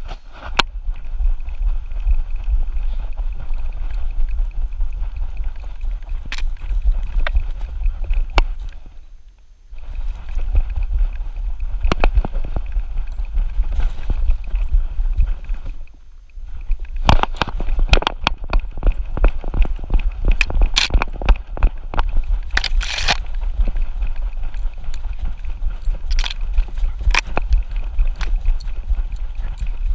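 Rumbling, rubbing noise from a camera worn on a dog's back as the dog moves through the woods, with many sharp clicks and knocks, thickest in the second half. The noise drops away briefly twice.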